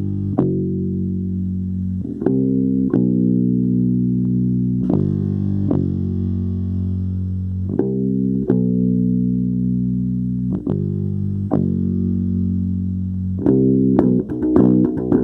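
Instrumental music of slow, sustained low chords, a new chord struck every second or so, turning to quicker notes near the end.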